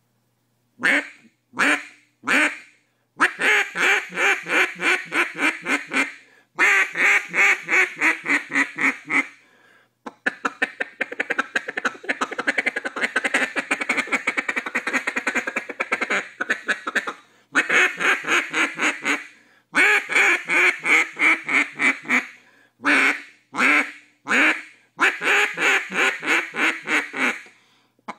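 BSOD keyhole cut-down duck call blown by mouth, giving duck quacks: a few single quacks, then strings of quick quacks, and in the middle several seconds of fast, unbroken chatter.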